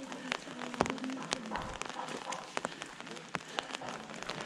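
Light rain falling on an umbrella overhead: many irregular sharp drop taps over a steady hiss of rain.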